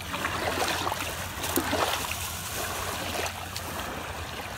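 Shallow wavelets washing over wet sand at the water's edge: a steady rushing wash with a few soft splashes.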